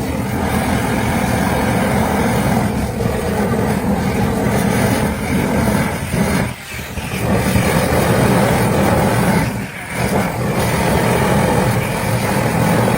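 Heavy machinery running steadily and loudly, dipping briefly twice, about six and a half and ten seconds in.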